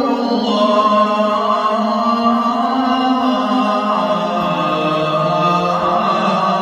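Islamic devotional song (naat) sung without instruments, in long held notes over a sustained low vocal drone that steps down in pitch about four seconds in.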